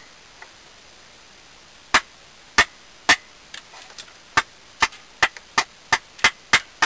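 A run of sharp slaps or knocks: three spaced strikes, then from about four seconds in a steady train at about three a second.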